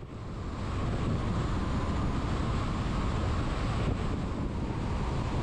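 Steady wind and road noise of a van driving along a highway, building up over about the first second and then holding level.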